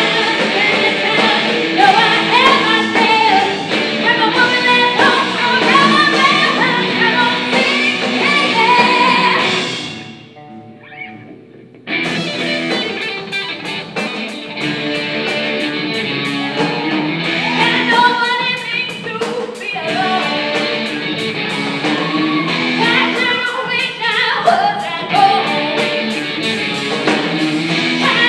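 Live rock band playing: electric guitars, bass and drum kit with female lead vocals. The band drops out almost entirely for about two seconds a little over a third of the way in, then crashes back in at full volume with the singing.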